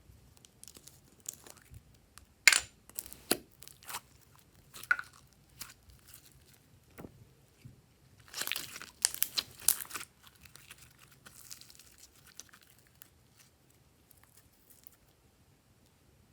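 Glossy slime being worked by hand, giving irregular sticky crackles and snaps, the sharpest about two and a half seconds in and a dense run of them from about eight to ten seconds, then only faint scattered ticks.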